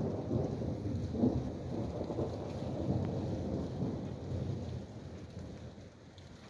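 Thunder rumbling, a long low roll that fades out over the last couple of seconds, with rain falling steadily underneath.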